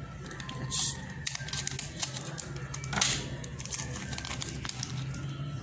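Scissors snipping a clear plastic bag open, then the plastic crinkling and rustling as a coiled charging cable is handled inside it: scattered small clicks with two short crisp swishes, about a second in and again about three seconds in.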